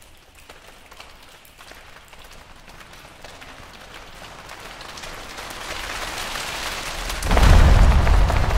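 Choir's body-percussion rainstorm: many hands rubbing and fingers snapping in a pattering patter that grows steadily louder. About seven seconds in it jumps to a much louder, heavier sound as the singers slap their thighs and stamp, the downpour-and-thunder part of the effect.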